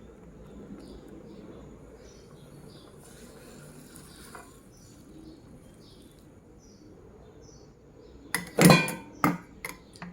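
A short run of four or five loud clattering knocks near the end, like pots or utensils being handled, over faint high chirps repeating about once or twice a second.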